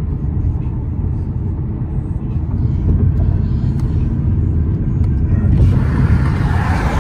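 Cabin drone of a Ford Mustang EcoBoost's turbocharged four-cylinder cruising at highway speed: a steady low engine and road rumble. About five and a half seconds in, a louder rushing noise swells over it.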